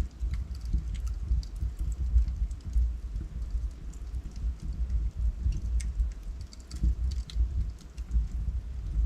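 Wood logs burning in a fireplace, crackling with many small, irregular sharp pops over a low rumble of the flames.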